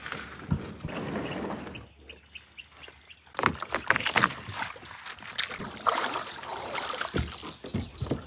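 Plastic Viking Profish GT fishing kayaks being pushed off a gravel bank into shallow water: hulls scraping over stones, with sharp knocks of paddle and gear on the hull and some splashing, most of it from about three seconds in.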